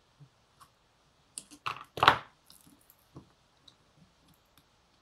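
Tools scraping and clicking against a soldered antenna probe as it is worked at to pull it loose. A quick cluster of scrapes comes about a second and a half in, loudest just after two seconds, with a few light ticks around it.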